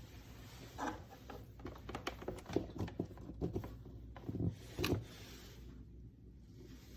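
A run of light, irregular clicks and knocks lasting about four seconds, the loudest near the end, over a low steady hum.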